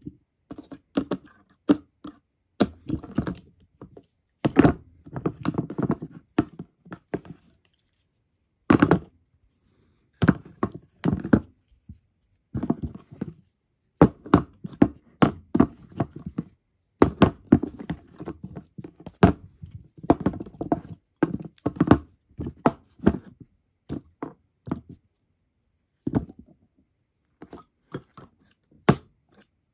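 Handmade moth figures knocked and rubbed against each other and a hard tabletop: irregular clusters of sharp clacks and taps with scraping and rustling between them, pausing for a second or two now and then.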